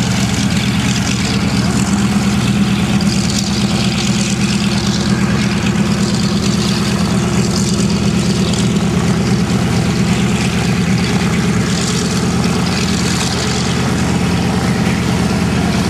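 CAC Boomerang's Pratt & Whitney R-1830 Twin Wasp radial engine running steadily at low taxi power as the fighter rolls past, with a deep, even drone.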